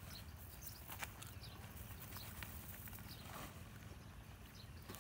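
Faint light taps and rustling as small fish and a nylon cast net are handled on a plastic sack while the catch is picked out by hand.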